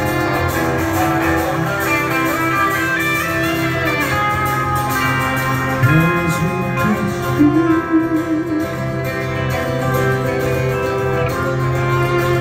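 Live band playing: strummed acoustic guitar with electric guitar and bowed violin.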